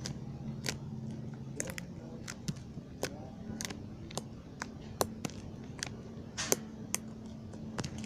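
Fluffy slime being squeezed and stretched by hand, giving irregular sharp sticky clicks and pops, about two or three a second, over a steady low hum.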